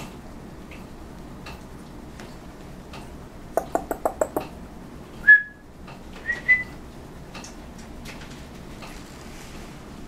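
A person making a quick run of about six kissing clicks, then three short high whistles: one loud whistle about halfway through and two quicker ones just after.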